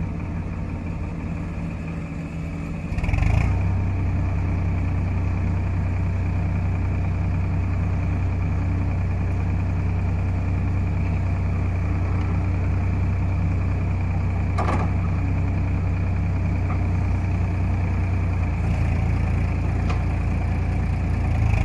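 Heavy diesel engine running steadily. It steps up in revs and loudness about three seconds in and holds there, with a sharp knock about halfway through.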